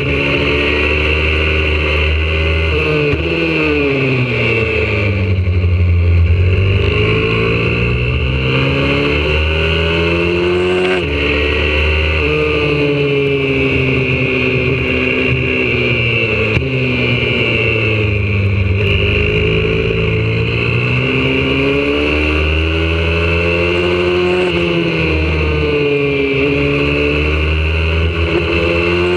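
Single-cylinder four-stroke engine of a YCF 125cc pit bike, heard on board at racing pace: it revs high along the straights, drops in pitch as the rider rolls off into corners (a few seconds in and again just past the middle) and climbs back as the throttle opens.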